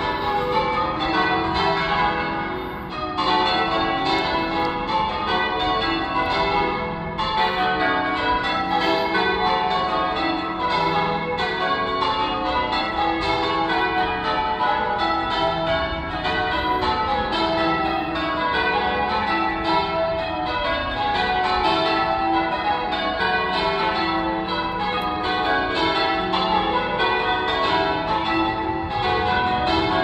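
Church tower bells being rung in changes, one bell struck after another in a steady, continuous peal.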